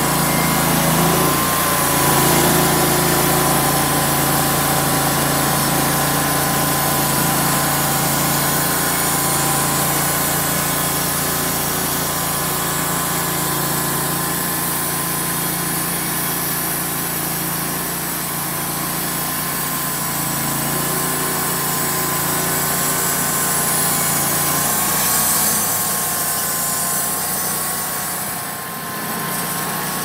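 Homemade bandsaw sawmill running through a butternut log: its air-cooled engine holds a steady note under load while the band blade whines and rasps through the wood. Near the end the low engine tones drop away and the sound thins.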